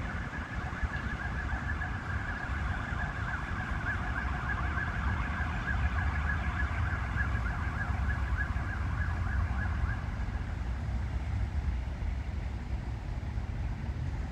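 MAN GT6 tram's wheels squealing against the rails as it rounds a curve, a wavering high tone that fades out about ten seconds in, over a steady low rumble.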